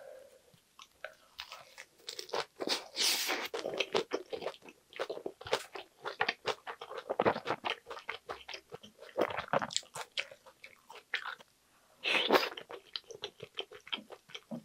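Chewing a mouthful of lettuce wrap filled with spicy stir-fried pork gopchang: crisp leaf crunching and wet chewing in quick, irregular bites. A short lull comes near the end, then one more loud crunch.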